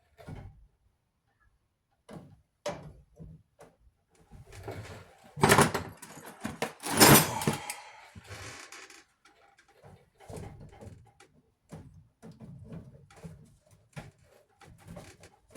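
Metal parts of a clothes dryer clattering and scraping as it is taken apart, scattered knocks with two loud scraping bangs about five and seven seconds in.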